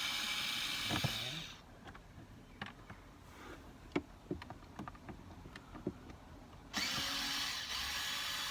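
Cordless drill-driver with a Torx bit spinning out the screws of a dashboard trim panel: one run stops about a second and a half in and the next starts near the end, with small clicks and taps of handling between.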